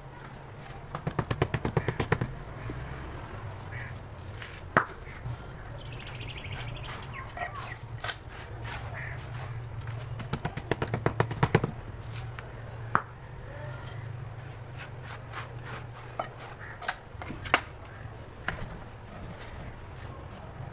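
Tapping on dried sand-cement blocks: two quick runs of sharp taps, one about a second in and one about halfway through, with single knocks scattered between.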